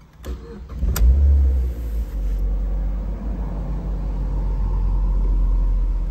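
Mazda MX-5 Miata's 2.0-litre DOHC inline-four starting: the starter cranks briefly, the engine catches about a second in with a short rev flare, then settles into a steady idle.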